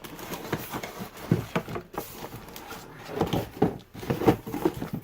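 A cardboard box and its packing being opened and handled: irregular rustling, scraping and small knocks.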